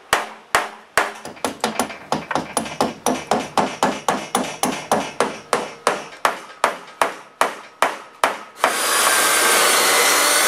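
Claw hammer tapping fasteners through a wooden door for its hinges, an even run of sharp blows about three a second. Near the end a cordless drill starts and runs steadily.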